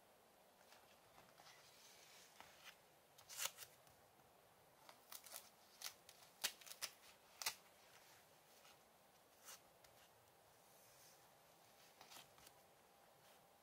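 Pages of a handmade booklet of eco-dyed paper being turned by hand: quiet rustles and crisp paper flicks, the loudest a few seconds in and around the middle, with a few softer ones later.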